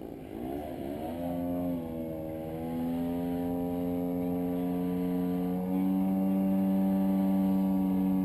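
Model aircraft engine running with a steady, pitched drone. Its pitch wavers in the first second, then steps up a few times as the throttle is opened.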